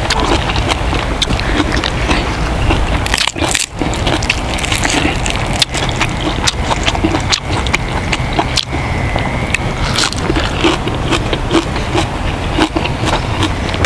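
A person eating close to a clip-on microphone, chewing and crunching food, with many short clicks and crunches.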